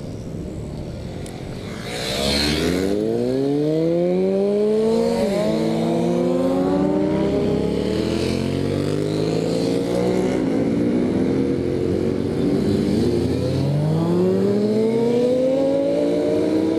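Motorcycle engine pulling away about two seconds in and accelerating through several gears: the pitch climbs, drops at each shift, and climbs again.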